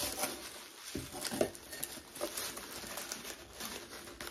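Packaging being handled as a boxed candle is packed back into its box: rustling with a string of light, irregular taps and knocks.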